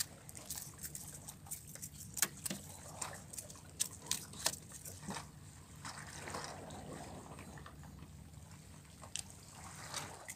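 Seawater lapping and trickling among shoreline rocks, with scattered sharp clicks and taps.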